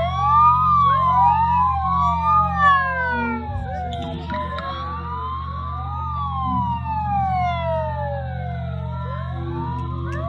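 Many overlapping whistling fireworks. Each whistle rises quickly and then glides slowly down in pitch over two to three seconds, over a steady low hum.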